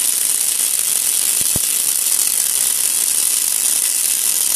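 Twin MIG welding arcs on an automatic welding lathe, both burning at once with an even, high-pitched sizzle.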